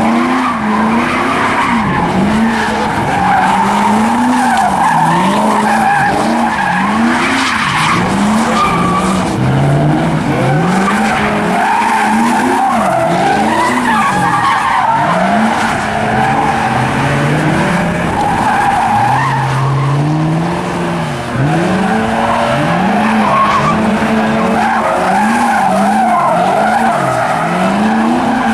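A car doing donuts: the engine revs rise and fall over and over while the rear tires screech without a break.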